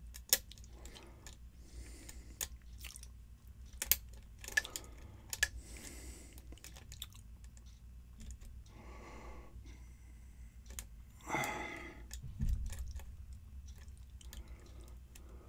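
Lock pick working the pins of a pin-tumbler challenge lock under tension: irregular small metallic clicks and scrapes as the pins are set, over a steady low hum. A short louder rustle comes about two-thirds of the way through.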